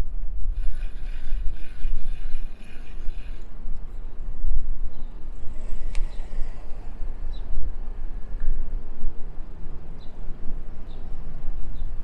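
Wind buffeting the microphone of a bicycle-mounted camera while riding along a city street, a fluctuating low rumble throughout. A high whining tone sounds for about three seconds near the start, and there is one sharp click about halfway through.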